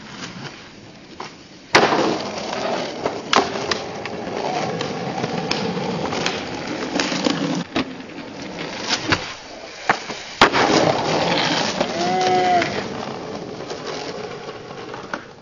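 Skateboard wheels rolling on concrete and asphalt, broken by sharp board impacts: a loud pop or slam about two seconds in, and further clacks near three and a half and ten and a half seconds.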